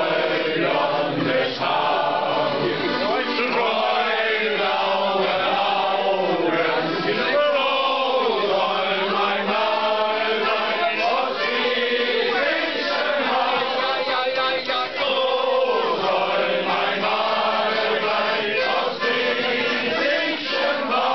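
A group of men singing a song together in chorus, accompanied by an accordion.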